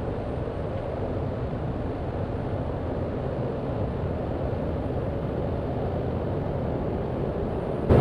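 Steady in-flight cabin noise of a Cessna 208 Grand Caravan: its Pratt & Whitney PT6A turboprop and propeller running as an even low rumble.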